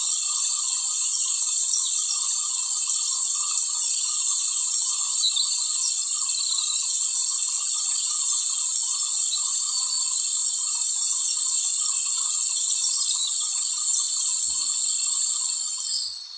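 Light rain falling as an even, steady hiss.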